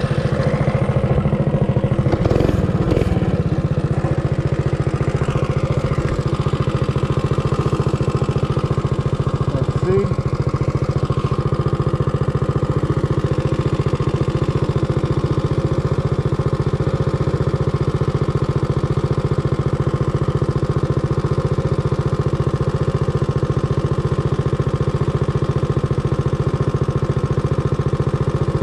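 Realtree RT200 mini bike's single-cylinder four-stroke engine idling steadily through a custom-made exhaust, settling from rolling to idle in the first few seconds.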